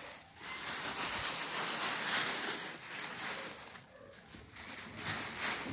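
Crumpled tissue paper crinkling and rustling as kittens burrow and scrabble through it, easing off briefly about four seconds in.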